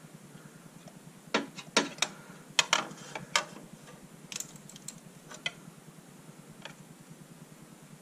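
Pry bar clicking and knocking against a Buick 3.8 V6's lower intake manifold as it is pried and wiggled: a quick run of sharp clicks in the first few seconds, then a few fainter ones. The manifold shifts only slightly and stays stuck.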